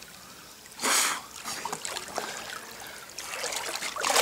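Water splashing and trickling around a winter swimmer as he moves in the water and climbs out onto a wooden pier. There is a loud splash about a second in and another near the end.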